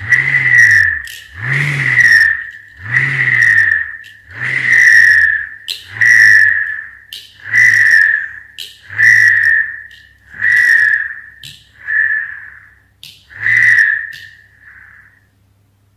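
Homemade bottle-cap whirligig spinning on a string as the string is pulled taut and slackened in turn. It gives a whirring whistle that swells and fades about every one and a half seconds, around ten times, getting weaker and dying out near the end.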